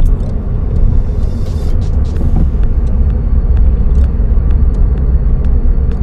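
Suzuki Swift Sport (ZC32S) driving, heard from inside the cabin: a steady low rumble of its 1.6-litre four-cylinder engine and road noise, with faint light clicks every so often.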